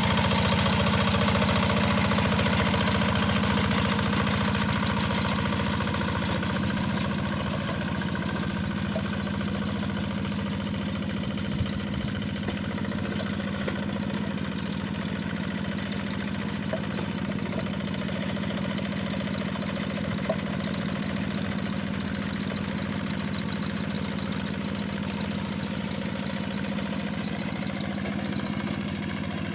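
Yanmar diesel engine of a hand tractor running steadily, getting a little quieter several seconds in.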